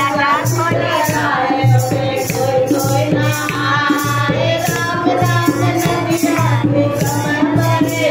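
Elderly woman singing a Shiv charcha devotional song to Shiva through a microphone. A steady dhol beat and jingling hand percussion accompany her.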